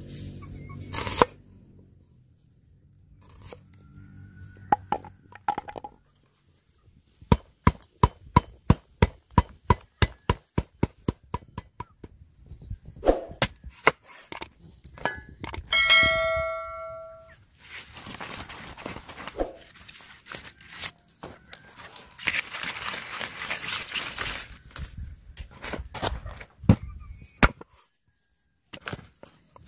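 A knife chopping on a wooden cutting board: a quick run of sharp knocks, about four a second, then a single ringing metallic ding. After that a blade cuts with a rasping sound through the bumpy rind and firm flesh of an unripe jackfruit.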